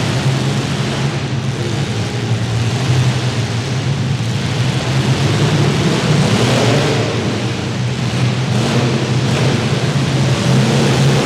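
Several compact demolition derby cars' engines running and revving over one another, loud and continuous, with pitch rising and falling as drivers throttle up.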